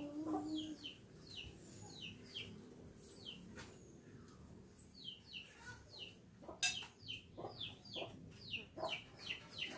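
Chicks peeping over and over, short high falling notes several a second, growing busier in the second half. A sharp knock cuts in about two-thirds of the way through.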